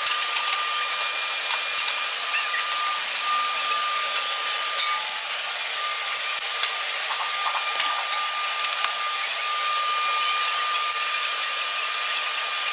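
Steady whirring machine noise with a thin high whine that fades in and out, under scattered light clicks and knocks of metal fittings being handled.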